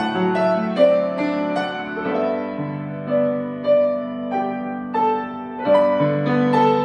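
Grand piano played solo: a hymn arrangement with a single-note melody moving about two notes a second over held low notes.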